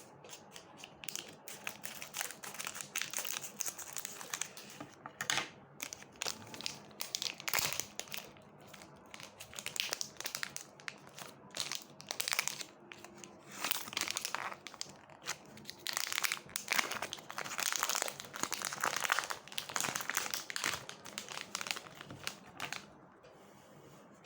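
Chocolate bar wrapper crinkling and rustling in irregular bursts as a Milka Alpenmilch bar is unwrapped; it dies away about a second before the end.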